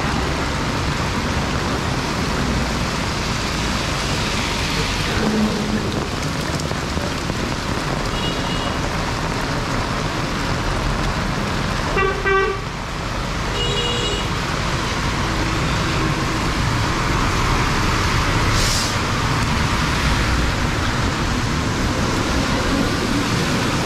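Heavy monsoon rain falling on a road, a steady loud hiss throughout. Short vehicle horn toots sound about a third of the way in and a few times around the middle.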